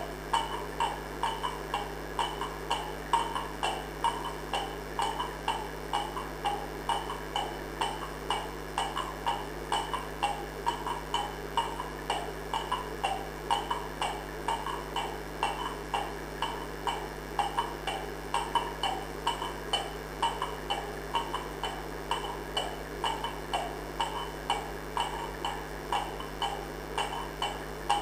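A steady rhythmic pulse, about two beats a second, repeating evenly over a constant low hum.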